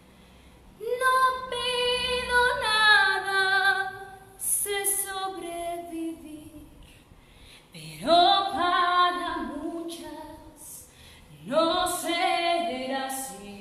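A woman singing a cappella: four long sung phrases with held notes, separated by short pauses.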